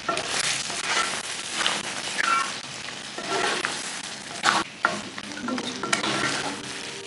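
Wooden spatula stirring mutton karahi around a black wok in repeated scraping strokes over a steady sizzle of frying masala, with a few short squeaks as the spatula rubs the pan.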